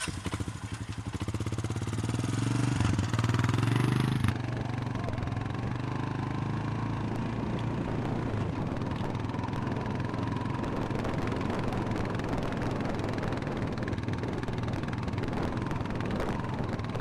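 A motor engine running steadily; it is louder for the first four seconds or so, then drops back and holds an even note.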